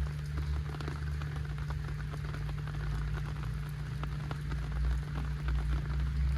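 Heavy rain falling, with a dense run of sharp drop ticks close by over a steady rushing hiss and a steady low hum underneath.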